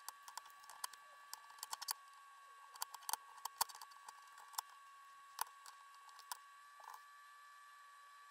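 Masking tape being picked and peeled off painted metal pump parts with a craft-knife blade: faint, irregular clicks and crinkles, some in quick clusters, stopping about a second before the end.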